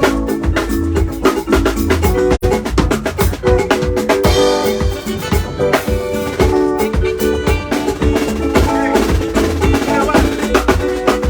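Loud music with a busy drum beat and steady melodic notes, played over a sound system during a sound check, with a split-second dropout about two and a half seconds in.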